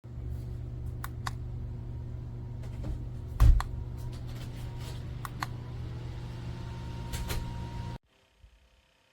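Mini USB clip fan running with a steady low hum, with several light clicks and one heavier knock about three and a half seconds in. The hum stops abruptly near the end.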